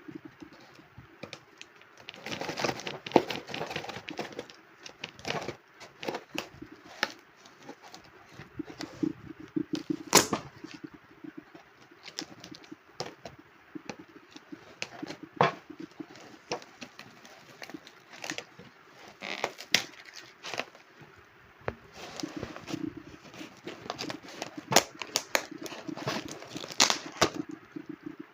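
Packaging being opened and handled, with cardboard and wrapping tearing and crinkling, broken up by many sharp clicks and knocks. The loudest knock comes about ten seconds in.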